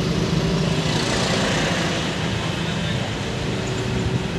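Road traffic noise: vehicles running past in a steady low hum, swelling about a second in.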